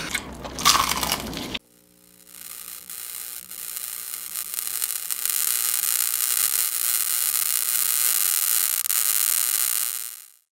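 Sound effect for a neon-sign logo intro: a crackling electric hiss that builds up over a few seconds, holds steady, and fades out near the end.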